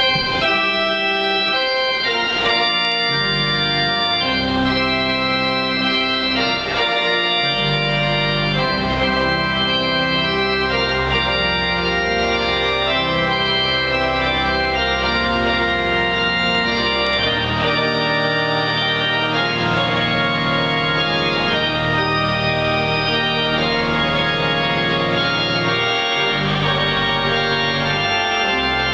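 Pipe organ playing full sustained chords over held pedal bass notes, the chords changing every second or two without a break.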